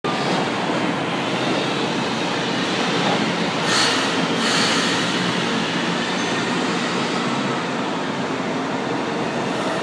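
Two São Paulo Metro Frota L (Alstom/IESA) trains running past each other through a station: a steady rumble of steel wheels on the rails, with a brief high hiss about four seconds in.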